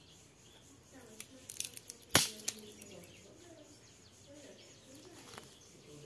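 Small kindling twigs crackling and snapping, a quick cluster of sharp snaps about a second to two and a half seconds in, with one loud crack just after two seconds.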